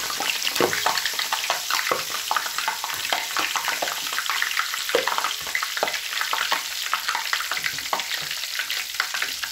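Flour-coated chicken piece deep-frying in hot ghee in a karahi, just lowered in: a steady, dense crackle of bubbling fat with many small pops.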